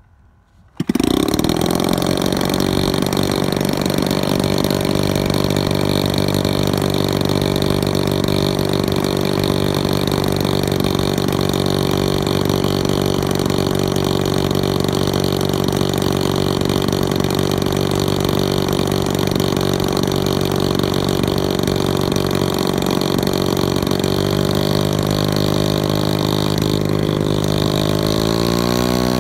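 The engine of a scratch-built 110-inch Kawasaki Ki-100 radio-control model plane starts abruptly about a second in and runs steadily at idle, turning the propeller. Over the last few seconds its pitch climbs as it speeds up.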